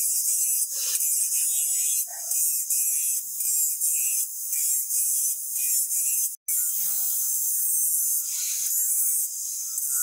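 Angle grinder with an abrasive disc grinding a forged steel axe head: a steady high-pitched grinding hiss, broken by a short dropout about six and a half seconds in.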